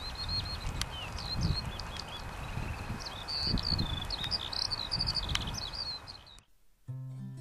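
Small birds chirping, many short high calls in quick succession over a steady outdoor noise. They stop abruptly about six seconds in, and an acoustic guitar starts playing near the end.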